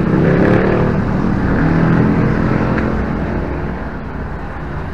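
A motor vehicle engine running, its pitch dropping in the first second, then fading away over the last few seconds.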